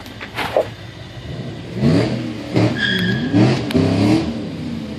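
A vehicle engine revving up and down several times from about two seconds in, over the steady low hum of the corn roaster's small drive motor turning the baskets. A couple of light knocks come in the first second.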